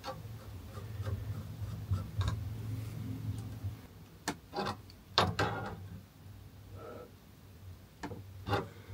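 Parts of a gas-pipe compression fitting being handled and fitted together: rubbing and a low rumble for the first few seconds, then a few sharp clicks and knocks of the parts about four to five seconds in.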